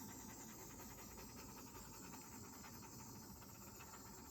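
Handheld butane torch burning with a faint, steady hiss, passed over wet acrylic pour paint to pop air bubbles.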